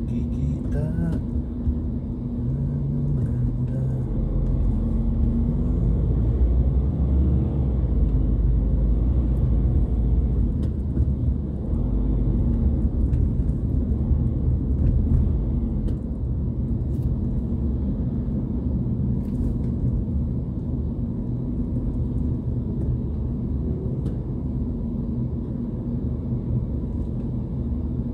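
Car engine and road rumble heard from inside the cabin while driving, with the engine pitch rising and falling as the car speeds up and eases off. The rumble is heaviest for the first half, then settles a little.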